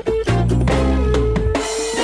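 Background music: an upbeat band track with drum kit, bass and held notes, the drums playing a fill into a crash near the end.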